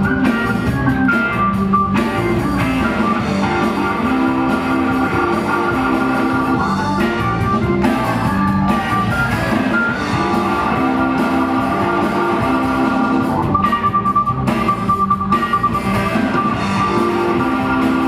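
A rock band playing live: electric guitar and drum kit, with a Hammond organ.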